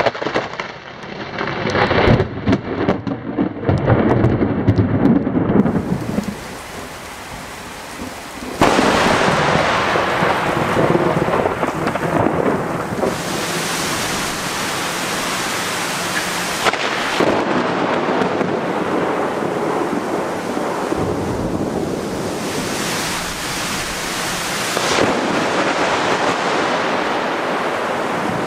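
Thunder from a close lightning strike, cracking and rumbling for the first several seconds. About eight and a half seconds in, heavy rain starts hissing steadily, with thunder rumbling and swelling through it.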